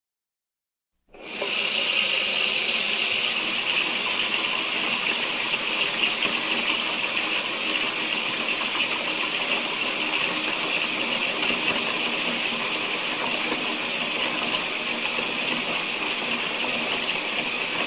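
Tap water running in a steady stream while hands are washed under it. The water starts about a second in.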